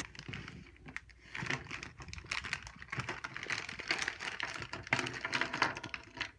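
Clear plastic zip bag crinkling while makeup pencils, brushes and tubes click and clatter against a wooden tabletop as they are handled and tipped out, a dense run of small irregular clicks and rustles.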